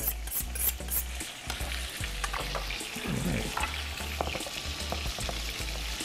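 Chicken breast searing in hot, smoking avocado oil in a skillet, a steady sizzle. During the first second a knife blade is drawn quickly across a honing steel, about three strokes a second.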